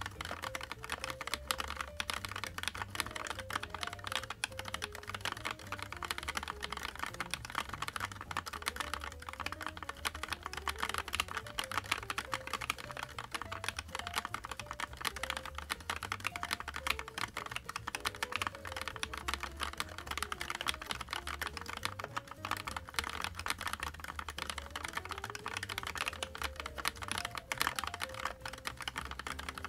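Fast, continuous typing on the cool836qal custom mechanical keyboard, a 36-key Alice-layout board with an O-ring, gasket-style mount: a dense run of keystroke clacks. Soft background music with a simple melody plays faintly underneath.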